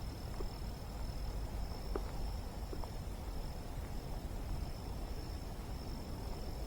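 Quiet outdoor ambience: a steady high-pitched insect trill over a low rumble, with a few faint ticks in the first three seconds.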